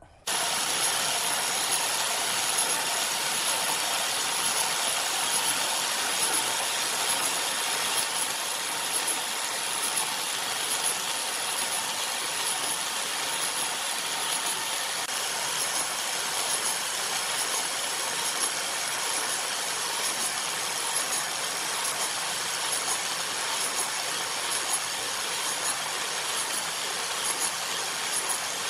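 Angle grinder running steadily with a thin high whine, its disc grinding against the surface of a log that is spinning on a wood lathe.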